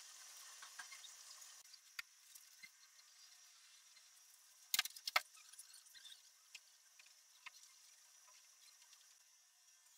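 Faint room tone with scattered small clicks and ticks, and a brief cluster of sharper clicks about five seconds in.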